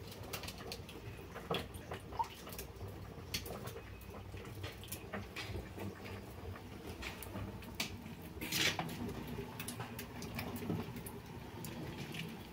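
Faint kitchen handling sounds: scattered light clicks and taps of utensils and cookware over a low steady hum, with a louder brief scrape about eight and a half seconds in.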